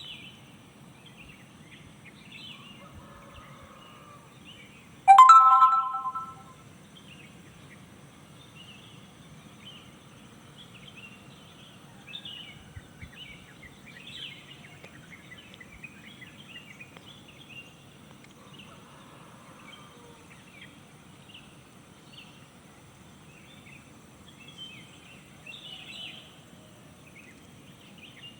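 Many small birds chirping and calling in a morning chorus, over a low steady rumble. About five seconds in, a single loud pitched call or honk lasts over a second and is the loudest sound.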